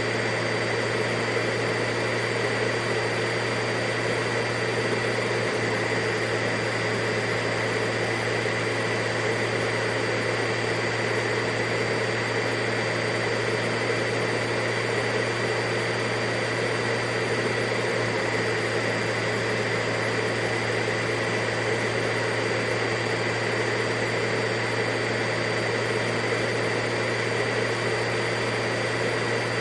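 Vacuum cleaner running steadily, a constant motor whine with a low hum and a high steady tone over a rush of airflow.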